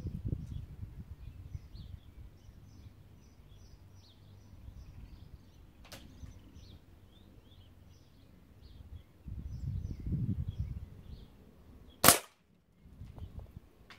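A single shot from a Walther LGU Varmint 4.5 mm air rifle about twelve seconds in, a sharp crack and the loudest sound. A faint click comes about six seconds in and a stretch of low rumbling shortly before the shot, with birds chirping faintly throughout.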